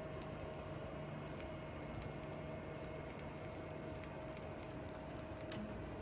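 Toolchanger 3D printer printing a first layer, a faint steady whine and hum from the machine with scattered small crackles and pops from wet filament in the hotend.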